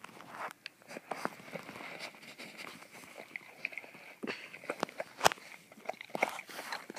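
A clear plastic zip-top bag of dog treats crinkling as it is handled, with irregular crackles and clicks; one sharp click stands out about five seconds in.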